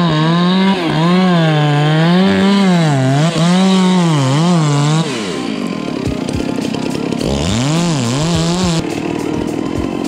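Two-stroke chainsaw revved up and down in quick throttle blips, its pitch rising and falling again and again. About halfway through it drops away, then is revved in blips once more and cuts off abruptly near the end.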